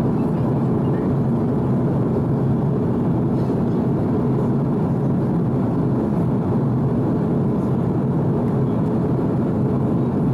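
Steady cabin noise of an Airbus A330-200 in flight, heard from a window seat: an even, unbroken rush of engines and airflow, strongest in the low range.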